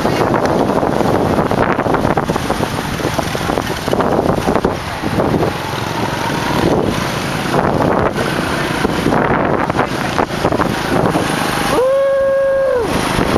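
Wind buffeting the microphone over the running engine and road noise of a motorcycle taxi on the move. Near the end, a single steady tone sounds for about a second.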